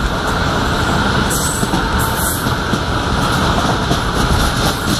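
Steady running noise of a passenger train on the move, wheels on the rails, heard from on board.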